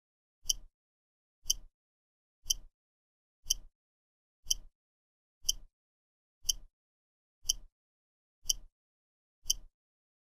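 Countdown timer's tick sound, one short sharp click each second, ten in all, marking off the final seconds before the alarm.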